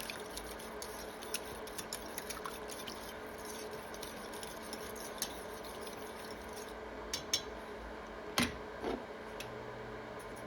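A metal spoon clinking and scraping lightly against a saucepan as creamy sauce is stirred and tasted, with a few louder clinks about seven and eight and a half seconds in. A steady hum runs underneath.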